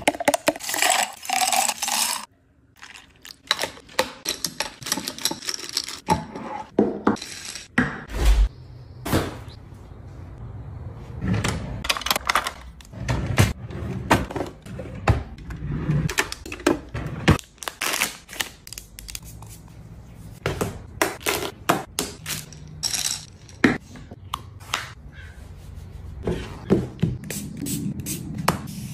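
Everyday handling sounds in quick succession: milk pouring into a glass of coffee for about the first two seconds, stopping abruptly, then many sharp clicks, taps and knocks of small objects, a drawer and devices being handled and set down.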